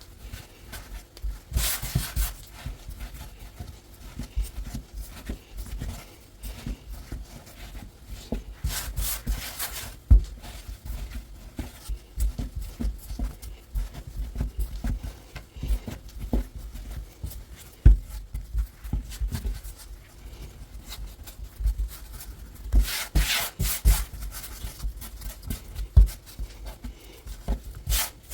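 Hands kneading a stiff semolina-and-water pasta dough: irregular soft low thumps as it is pressed and folded, with a few short bursts of gritty rubbing.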